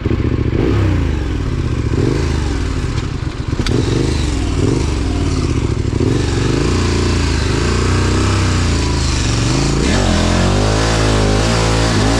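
Dirt bike engine revving up and down over and over for about ten seconds, then held at a steadier, wavering pitch near the end.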